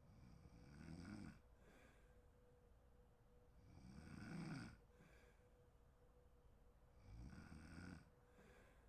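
A sleeping woman snoring: three snores about three seconds apart, each lasting about a second, with a faint steady hum underneath.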